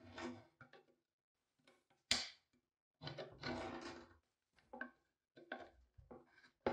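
Steel pliers gripping and working the hinge pin out of an antique metal paper punch: a series of metal clicks and knocks, the sharpest about two seconds in, with a stretch of scraping and rubbing a second later.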